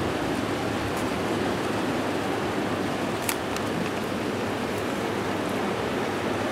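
Steady rain, an even hiss with a few faint ticks.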